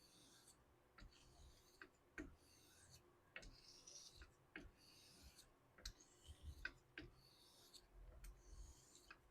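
Straight razor being honed on a 1k Shapton whetstone: faint swishes as the blade is drawn across the stone, about one stroke a second, with a sharp click as the taped spine is flipped over on the stone between strokes.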